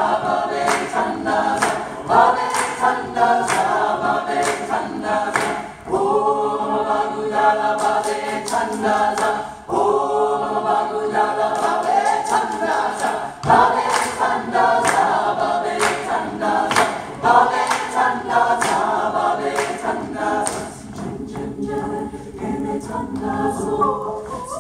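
Music: a choir singing a cappella over a steady beat of sharp percussive hits, about two a second.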